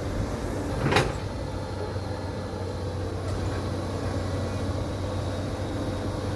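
Caterpillar 320D L excavator's diesel engine running steadily, with one sharp knock about a second in.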